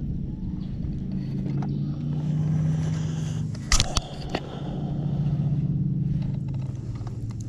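Steady low engine hum that swells and eases in level, with a few sharp clicks near the middle.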